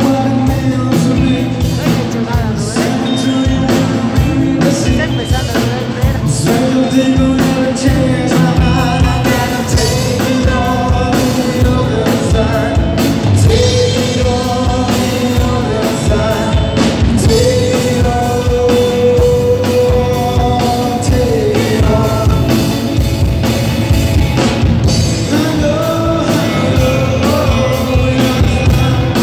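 Live rock band playing a song: electric guitars, bass and a drum kit hitting steadily, with a lead vocal holding long notes.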